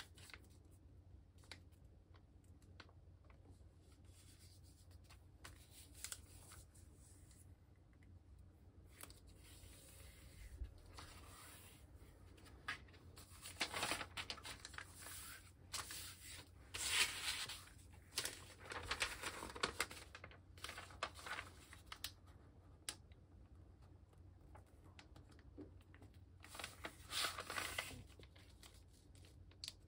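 A large sheet of origami paper rustling and crinkling as hands fold it, lift and turn it over, and press the creases flat against a cutting mat. The paper noise comes in irregular bursts with quieter stretches between, loudest in the middle and again near the end.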